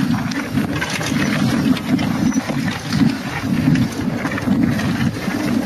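Wind buffeting the camera microphone on a downhill mountain-bike descent, a steady low rush with quick rattles and knocks from the bike running over rough ground.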